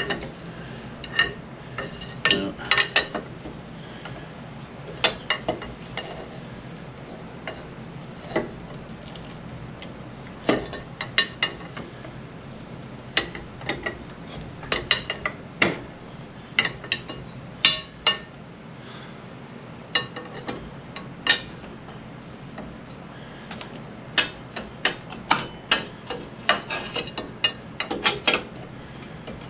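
Irregular clinks, taps and knocks of a steel pry bar and tools working against a motorcycle's front brake caliper, with short bunches of quick strikes. The caliper will not come free because its pistons are seized and won't retract.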